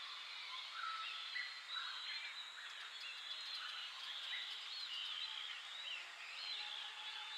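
A chorus of many birds singing and calling at once, overlapping warbled and whistled notes that run on steadily.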